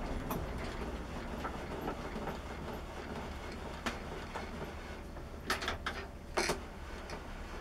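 A few scattered clicks and knocks of parts being handled on a workbench, with a quick cluster of them about five and a half seconds in and another just after, over a steady low hum.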